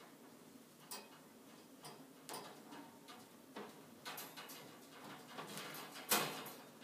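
Irregular clicks and taps of a kitten's claws and paws on the wire bars of a cage and a hanging fabric hammock as it plays. A louder thump about six seconds in, as the kitten comes down onto the cage floor.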